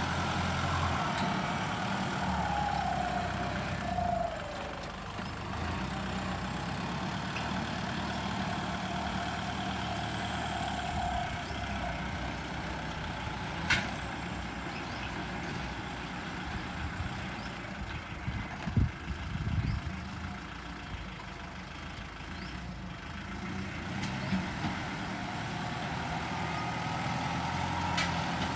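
Kubota L50 turbo tractor's diesel engine running steadily as it pulls a disc harrow across sandy ground. A sharp click comes about halfway, then a few knocks soon after.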